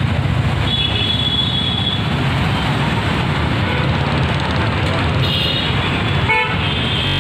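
Steady roar of busy road traffic: engines and tyres of passing motorcycles, autorickshaws and buses. Brief high-pitched tones come about a second in and again near the end.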